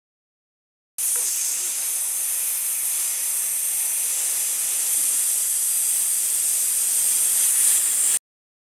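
Frying-pan sizzle sound effect: a steady, high hiss that starts abruptly about a second in and cuts off suddenly near the end.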